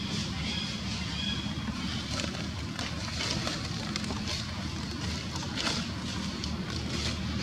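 Outdoor ambience: a steady low rumble with faint, scattered short clicks and rustles.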